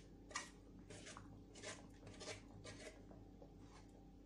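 Faint scraping and rustling as diced jackfruit is pushed off a styrofoam tray into a wok of coconut milk, by hand and then with a metal ladle. It is a string of short, soft, irregular scrapes, the sharpest about half a second in.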